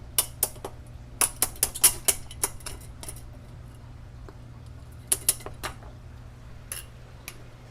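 Plastic egg crate grid being broken apart, a run of sharp snaps and clicks that come in several quick clusters with short pauses between them.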